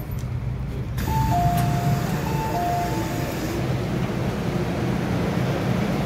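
MTR M-Train doors opening at an underground station: a sudden rush of noise as the doors part about a second in, then a two-note door chime, high then lower, sounding twice, over the steady low hum of the train.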